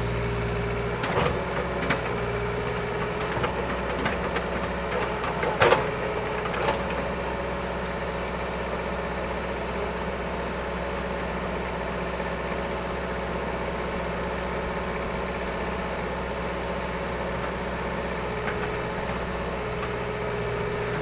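Hitachi excavator's diesel engine running steadily. A few sharp knocks come in the first seven seconds, the loudest about six seconds in.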